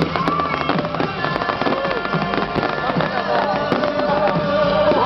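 Fireworks display going off without a break: a dense run of crackles and pops.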